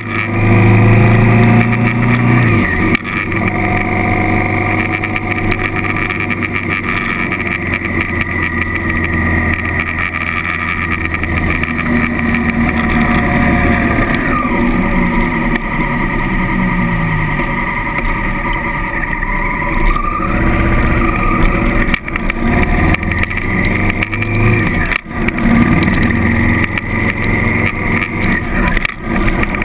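Honda CRF1000L Africa Twin's parallel-twin engine running while under way, its pitch rising and falling several times with throttle and gear changes, over steady wind noise.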